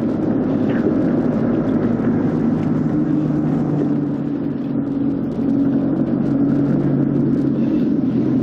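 Car engine running steadily while driving, a low even hum under road and tyre noise.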